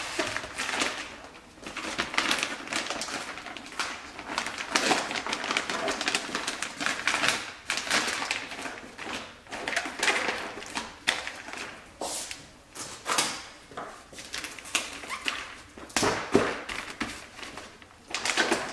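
Clear plastic sheeting crinkling and rustling in irregular bursts as it is folded and pulled around a framed canvas painting.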